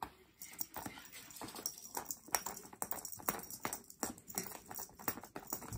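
Cat wand toy's colourful segmented cord rattling and ticking as it is waved and flicked against the tatami mat: a quick, irregular run of sharp clicks.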